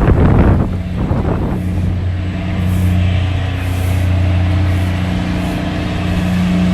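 A motor vehicle's engine running steadily at a constant speed, a low even hum, after a brief gust of wind noise on the microphone at the start.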